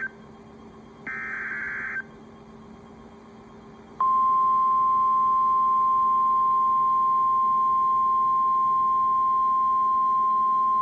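Weather-radio emergency alert signalling. The last of the SAME digital header bursts, a buzzing data chirp about a second long, ends about two seconds in. After a short gap, the steady single-pitch 1050 Hz NOAA Weather Radio warning alarm tone starts about four seconds in and holds loud.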